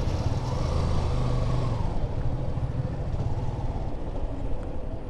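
Yamaha FZ 2.0's single-cylinder engine running, its pitch dropping about two seconds in.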